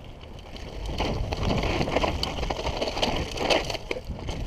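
Mountain bike rolling fast down a rocky dirt trail: tyres crunching and clattering over loose stones, with the bike rattling. The noise grows louder about a second in.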